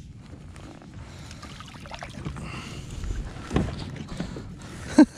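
Water lapping and sloshing against a plastic fishing kayak's hull, with small knocks of gear being handled, and one short, loud vocal sound like a grunt just before the end.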